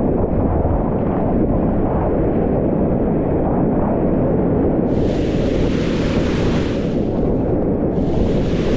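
Whitewater rapids rushing loudly and steadily around a kayak, heard dull through a GoPro's microphone. About five seconds in, and again near the end, a brighter splashing hiss joins it.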